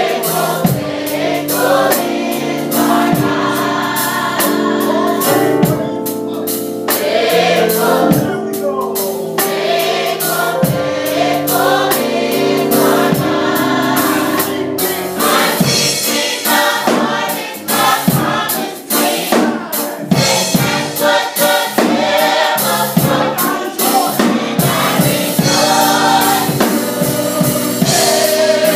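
Gospel choir of young adults singing in harmony, with a band's drum kit keeping a steady beat.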